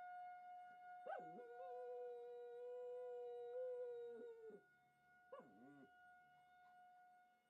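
A dog howling at a tornado siren. One long howl swoops up about a second in, holds steady for about three seconds and drops away, then a short second howl follows. Both sound over the siren's steady tone.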